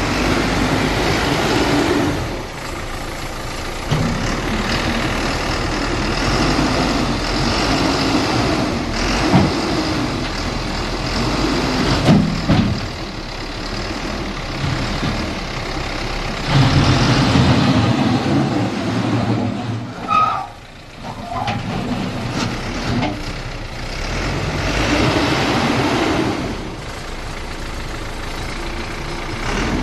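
Heavy diesel excavators running and working, the engine note rising and falling every few seconds. A brief dip in level comes about two-thirds of the way through.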